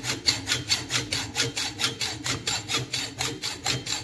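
Hand hacksaw cutting through a steel door hinge clamped in a vise, in quick, even back-and-forth strokes of about four a second.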